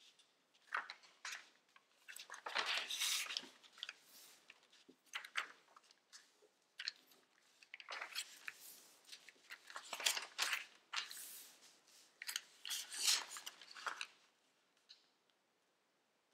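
Sheet of origami paper rustling and crinkling as hands fold, press and crease it, in irregular bursts with sharper crunches.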